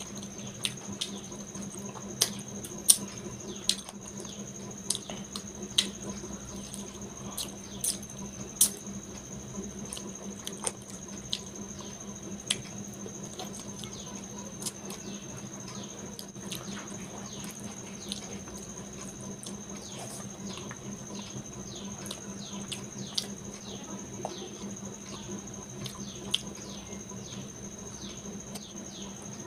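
Close-miked eating sounds: irregular wet smacks, clicks and chewing as rice and curry are eaten by hand, with the sharpest smacks in the first third. A steady faint high-pitched tone and a low hum sit underneath throughout.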